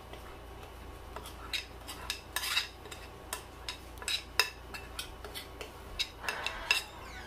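A metal spoon scraping and clinking against a ceramic mixing bowl as thick cornbread batter is scraped out of it, in irregular short clicks and scrapes.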